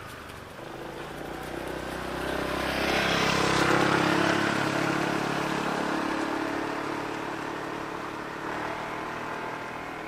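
A motor vehicle driving past, its engine and tyre noise rising to a peak about four seconds in and then slowly fading.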